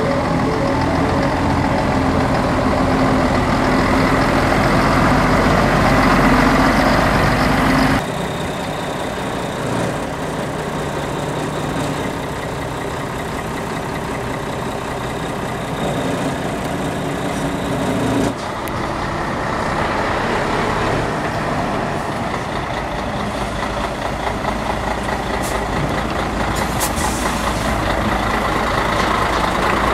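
Heavy diesel truck engines idling and running, heard across several shots cut together, so the engine sound changes abruptly about eight and eighteen seconds in.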